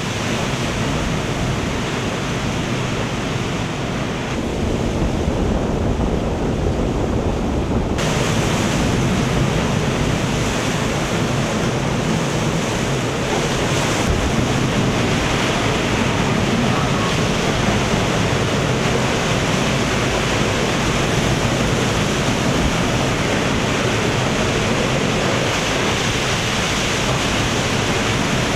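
Storm wind and heavy rain making a steady, loud rushing noise, with wind buffeting the microphone. The sound grows brighter and louder abruptly about eight seconds in, and shifts again around fourteen seconds.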